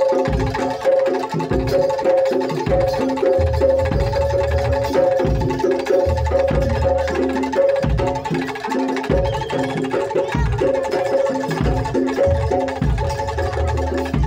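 Live traditional percussion music: frequent deep drum strokes under a repeating pattern of held, pitched metallic notes.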